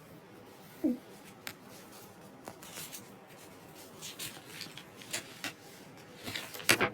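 Quiet handling noises: scattered light clicks and rustles in a small room, with a short low blip about a second in and a louder rustle near the end.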